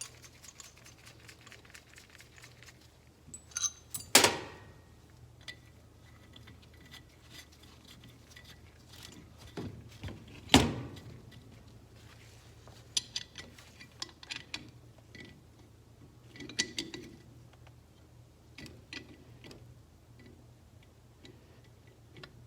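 Metal tools and overdrive parts clinking and clicking while being worked by hand, with two sharp metallic knocks about four seconds and ten seconds in.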